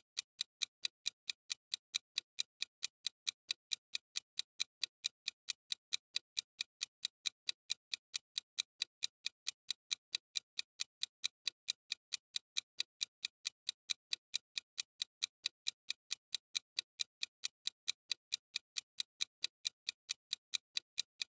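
Countdown-timer ticking sound effect: a clock-like tick repeated evenly, about three and a half ticks a second, counting down the time to answer.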